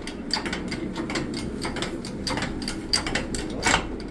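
Irregular metallic clicking of a jack being worked while laid on its side to push a cracked basement block wall back into line, with a louder knock near the end.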